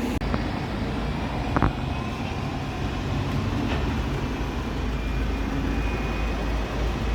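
Bus engine running with a steady low rumble, with a couple of sharp clicks in the first two seconds.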